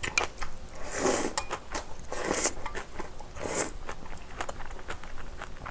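Close-up eating sounds: three slurps of instant ramen noodles and broth about a second apart, with chewing and light clicks in between.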